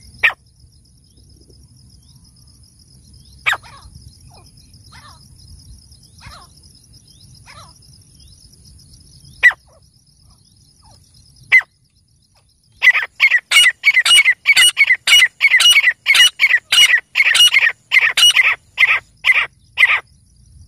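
Male grey francolin calling. A few sharp single notes come several seconds apart. About halfway through they break into a fast, loud run of repeated notes, roughly three a second, which is the male's full territorial call.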